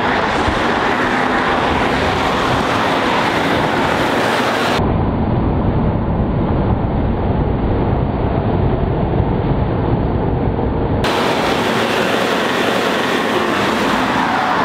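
Loud, steady rushing noise of a moving vehicle. From about five to eleven seconds in it turns duller and deeper.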